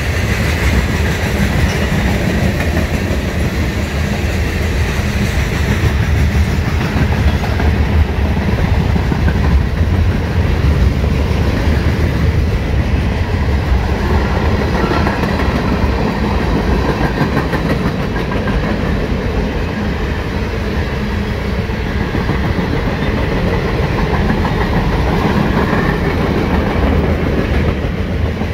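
Freight train cars rolling past on the rails: a steady, loud rumble of steel wheels on track that holds even throughout.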